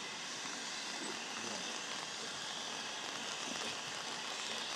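Steady hiss of steam escaping from steam locomotives standing and moving slowly at a station, with no exhaust beats.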